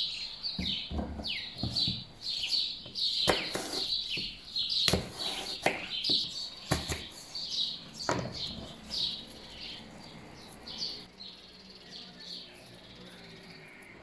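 Songbirds chirping steadily in short, falling calls, with sharp knocks of a kitchen knife coming down through a green apple onto a plastic cutting board in the first half. The chirps thin out over the last few seconds.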